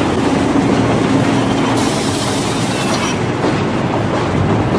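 Subway train running through a station: a steady rumble and clatter of wheels on rail with a low motor hum.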